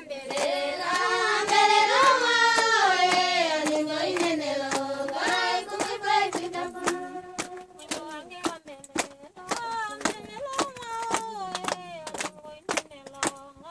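A group singing with hand claps keeping a steady beat, the song coming in two long phrases while the clapping runs throughout.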